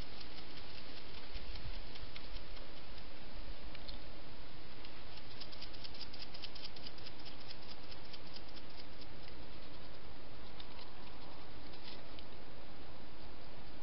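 Fast, faint clicking and crackling of a European hedgehog eating and rummaging over food scraps, thickest in the middle, over the steady hiss of a night-vision trail camera's microphone.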